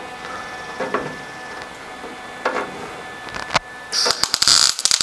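A few sharp knocks of steel tubing being handled and positioned, then, about four seconds in, a MIG welder's arc crackling loudly for about a second and a half as a light tack weld is laid on the steel frame.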